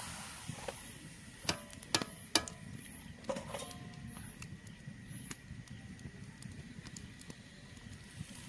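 A steel slotted spoon clinking sharply against the iron kadhai and steel plates a few times in the first few seconds, with brief metallic ringing, as fried puris are lifted out. Underneath, a faint steady crackle of the wood fire and hot oil.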